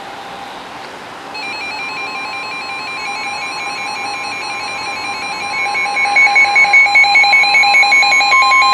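Several NOAA Weather Radio receivers sounding their alert alarms for a severe thunderstorm warning, as overlapping beeping, warbling tones that get louder and pulse about six seconds in. Near the end the steady 1050 Hz warning alert tone becomes much louder.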